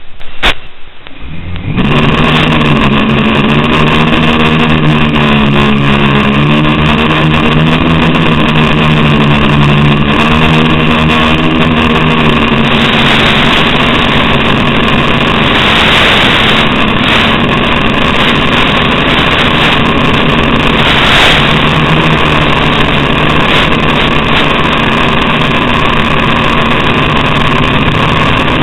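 FPV quadcopter's motors and propellers in flight, heard through the onboard camera's audio over the analog video link: a loud buzzing whine whose pitch wavers up and down with throttle, over a constant hiss. It comes in about two seconds in.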